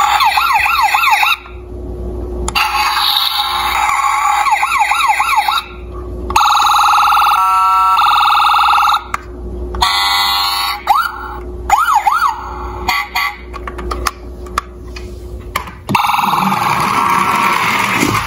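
Electronic siren sound effects from a battery-powered toy police SUV: runs of a fast warbling siren broken by short pauses, then steady horn-like tones and a few quick single sweeps. Near the end the sound gives way to a rougher, noisier sound.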